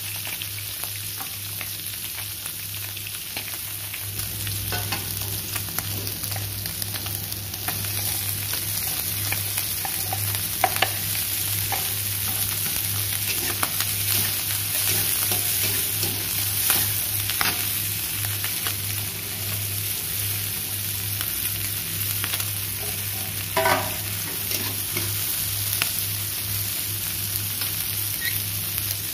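Chopped chillies, tomato and shallots sizzling in hot oil in an aluminium wok with pieces of fried fish. A metal spatula stirs and scrapes, knocking against the wok a few times, over a steady low hum.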